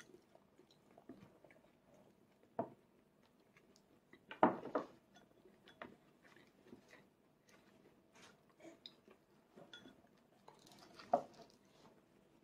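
Soft clicks and taps of plastic training chopsticks against a plate, with quiet chewing. A few louder knocks stand out, the largest a little over a third of the way in and another near the end.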